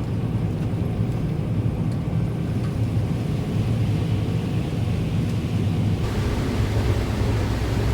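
John Deere combine running steadily during corn harvest, a constant low engine rumble with machinery noise over it. About six seconds in, a brighter hiss joins.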